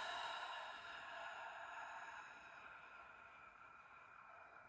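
A long, slow exhale through the mouth, a steady breathy rush that fades gradually as the lungs empty: a deliberate full cleansing breath out.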